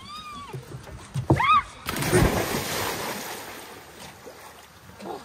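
Two short, excited shouts, then about two seconds in a loud splash as people jump off a dock into a lake, the churned water washing and settling as it fades.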